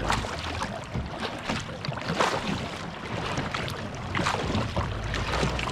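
Kayak moving on the lake, with paddle strokes splashing in the water every second or two and a low rumble of wind on the microphone.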